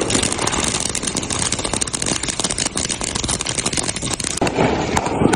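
Small consumer firework on concrete, hissing with a dense, rapid crackle throughout; near the end the high hiss fades and a lower rushing sound takes over.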